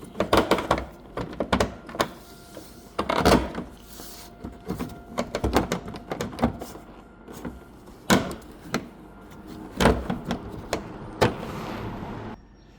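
Irregular knocks, clicks and thuds of hands and tools working on a car's tailgate trim, with a short rustling noise near the end.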